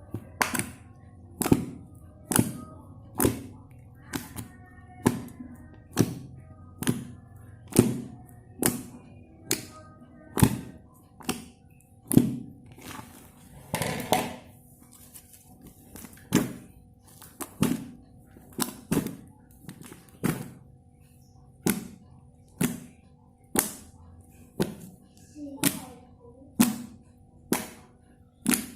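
Soft slime being worked by hand, giving a short wet thunk a little more than once a second, over quiet background music.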